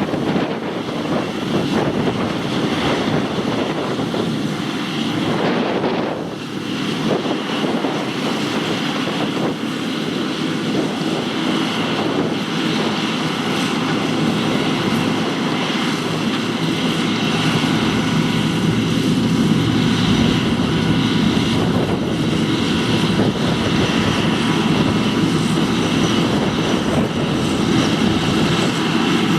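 John Deere 2264 combine harvester running steadily, a loud, even engine and machinery drone with several steady tones in it, briefly dipping about six seconds in.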